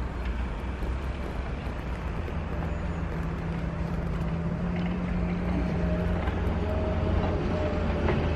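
Diesel engines of heavy construction machinery running: a steady low drone, with a higher engine note joining about a third of the way in and fading out again.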